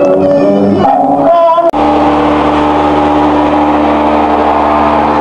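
Festival singing with music for under two seconds, cut off abruptly by a click; then a steady engine hum, even and unchanging in pitch.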